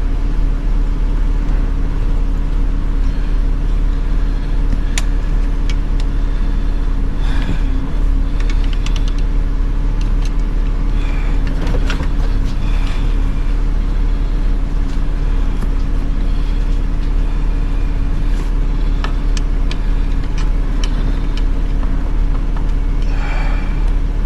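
A steady low hum throughout, with scattered small clicks, taps and rustles of hands and tools working at the car's plastic console trim.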